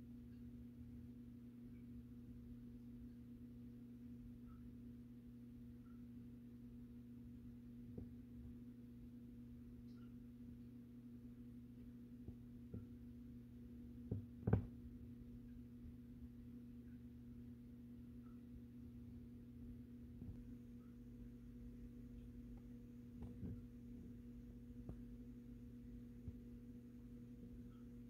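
A steady low hum with a few faint taps and clicks over it, the loudest pair about fourteen seconds in.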